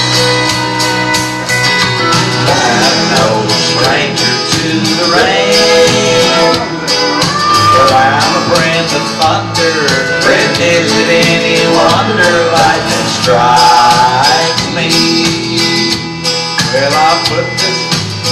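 Country song playing its instrumental ending, with guitar chords under a lead melody that slides between notes.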